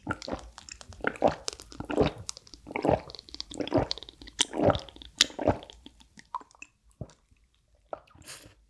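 A person gulping a drink from a glass close to the microphone: about six swallows in a steady rhythm, then a few light clicks.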